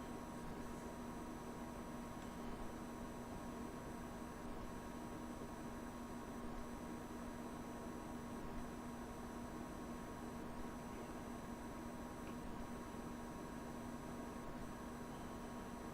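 Steady electrical hum and hiss with a few fixed tones, low, mid and high, and no distinct knocks, clicks or tool sounds.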